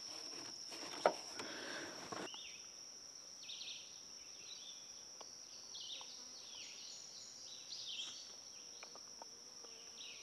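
Steady high-pitched drone of insects, with faint chirping from about two seconds in. A few light clicks and rustles come in the first two seconds.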